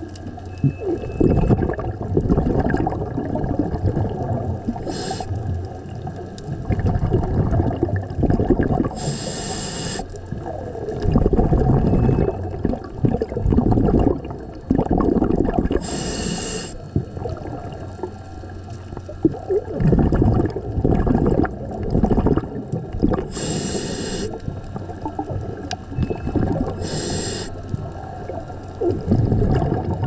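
Scuba diver's regulator breathing heard underwater: a short hiss of inhaled air every four to seven seconds, with low bubbling from the exhaled bubbles in between.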